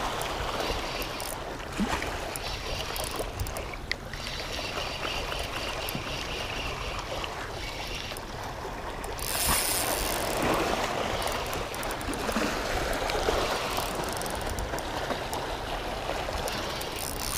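Water lapping and splashing against the hull of a small boat, with a steady low rumble of wind on the microphone; the water grows louder for a couple of seconds a little past the middle.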